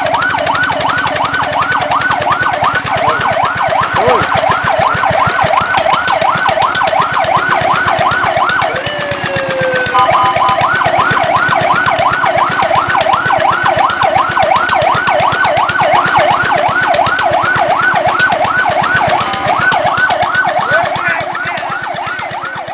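Fire truck siren sounding a fast electronic yelp, its pitch rising and falling several times a second. About nine seconds in it breaks off into a falling sweep and a brief steady tone, then the yelp resumes and grows fainter near the end.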